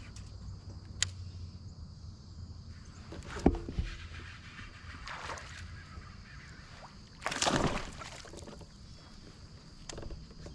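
A fishing kayak on the water: a sharp knock about three and a half seconds in and a longer rushing splash-like noise about seven seconds in, with small clicks, over a steady high-pitched tone.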